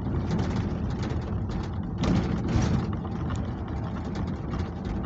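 Inside the cab of a restored Chevrolet C10 pickup driving over a rough road: engine and road rumble with frequent rattles and clunks from the truck, louder for a moment about two seconds in.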